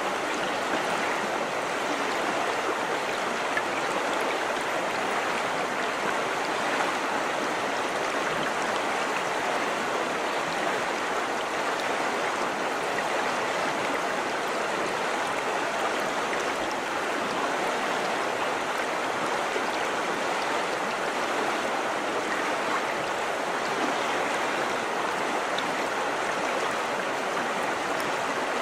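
River water rushing and babbling over rocks in a steady, unbroken flow.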